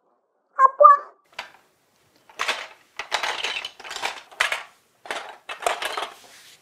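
Large plastic Duplo bricks clattering and scraping against each other in several bursts as they are pushed aside in a pile, starting about two seconds in. Before that, a brief high-pitched call sounds just under a second in.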